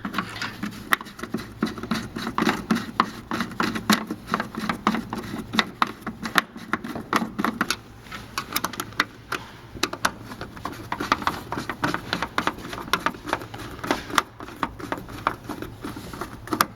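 Hand tools working on the casing of an ES&S AutoMark voting machine during disassembly: a dense, irregular run of small clicks, taps and rattles of screws, metal and plastic parts being handled.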